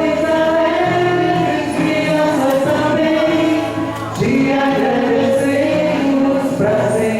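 A devotional hymn sung by a group of voices over a steady low accompaniment, in long held notes, with a short break about four seconds in before the next phrase.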